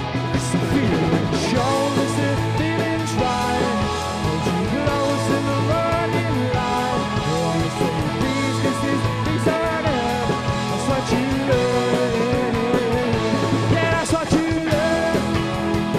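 Indie rock band playing: electric guitars, bass and drums, with a wavering melodic lead line over steady bass notes through most of it.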